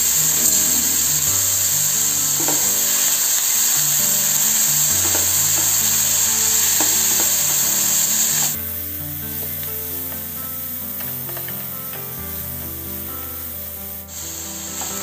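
Boiled sweet corn kernels sizzling in hot oil in a steel kadhai, with a metal spatula scraping and clicking against the pan as they are stirred. The sizzle is loud at first, drops to a quieter hiss a little past halfway, and comes back up near the end.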